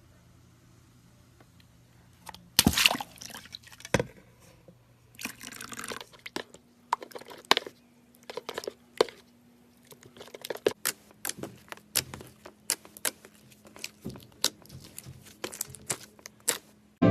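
Slime-filled stress ball being cut with scissors and its slime squelching. There is a sudden wet burst a few seconds in, then a run of sharp sticky clicks and pops.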